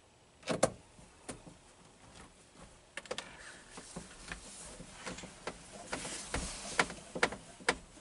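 Scattered sharp clicks and taps of a hand tool and hands working on a vinyl-covered car B-pillar trim panel, with rustling handling noise in between that grows in the second half. The loudest click comes about half a second in.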